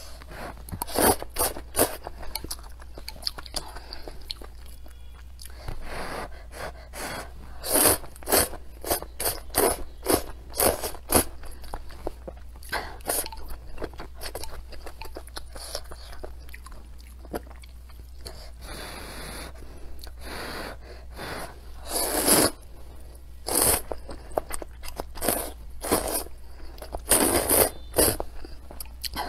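Close-up eating sounds of a bowl of noodles with spicy and sour chicken offal: wet chewing with crunches, and noodles being slurped. There is one longer slurp a little past the middle.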